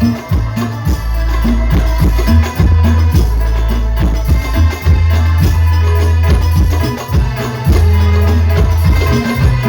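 Sholawat devotional music played loud through a sound system for a sound check: deep sustained bass notes under a steady beat of hand drums and jingling percussion.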